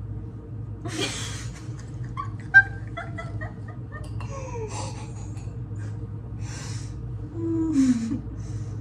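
Women laughing and giggling in short, breathy bursts, with a single sharp click about two and a half seconds in.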